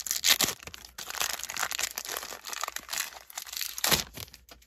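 Wrapper of a 1990 Score baseball card pack crinkling as it is torn open and crumpled in the hands, with a louder crunch about four seconds in before it stops.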